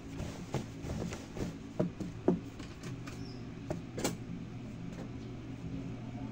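Stiff khaki cotton trouser fabric being folded and pinched by hand at a sewing machine: rustling and several short knocks, the sharpest about two seconds in and again about four seconds in, over a steady low electric hum.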